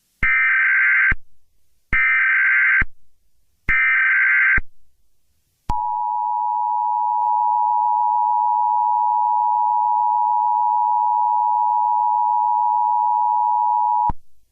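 Emergency Alert System tones for a Blue Alert: three short bursts of the SAME digital header that encodes the alert, then the steady two-tone attention signal, held for about eight seconds before it cuts off.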